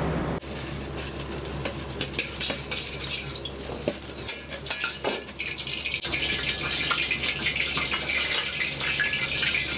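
Metal utensils clinking and scraping against a pan and dishes while food fries. The sizzle swells about six seconds in.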